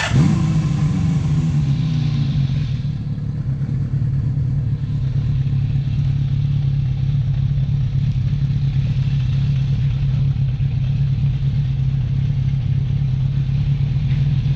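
Motorcycle engine running at a steady low note as the bike moves slowly, over a haze of wind noise on the camera's microphone. It opens with a sudden burst of revs whose pitch falls back within about a second.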